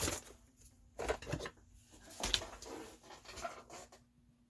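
Handling noise on a workbench: a few light knocks and rustles as small model parts are picked up and moved, the clearest just after the start, at about one second and at about two and a quarter seconds.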